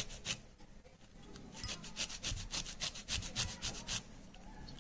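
Orange peel being grated on a metal hand grater: quick rasping strokes, about four or five a second, after a lull of about a second near the start, stopping shortly before the end.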